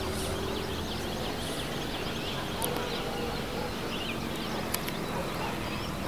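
Many birds chirping and twittering at once, a dense run of short quick calls, over a low steady hum.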